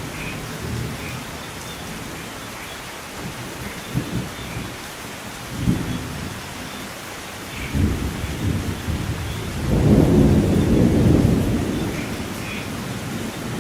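Thunderstorm: steady rain hiss with rolls of thunder that swell several times. The biggest, longest roll comes about ten seconds in and fades over a couple of seconds.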